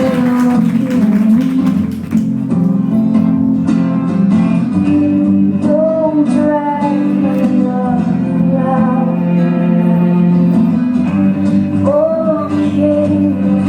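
A song playing, with guitar accompaniment and a singing voice.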